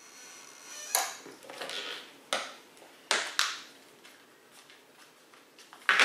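Small tools and fittings being handled on a tabletop: a few sharp clicks and clatters about a second in, twice around three seconds and again near the end, with light rustling and scraping between.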